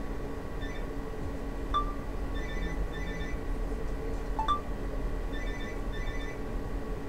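A steady electrical hum, with a faint electronic tune of short beeps sounding in three bursts and two light clinks, one about two seconds in and one near the middle.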